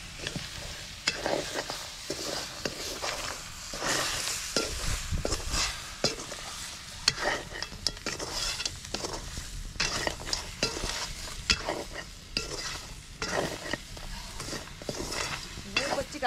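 A wooden-handled spoon stirs prawns and crab in a sizzling metal pan. It scrapes and knocks against the pan many times at an uneven pace over the steady hiss of the frying.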